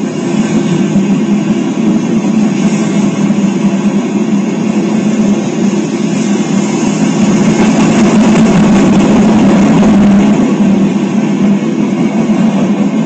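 Freight train cars rolling past close by: a steady rumble of steel wheels on rail that swells a little in the middle, heard on a trackside webcam's audio.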